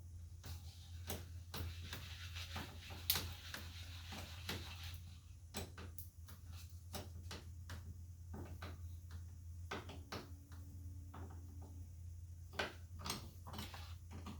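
Wrench tightening a battery terminal clamp back onto its post: a run of sharp, irregular metal clicks, a few a second, over a low steady hum.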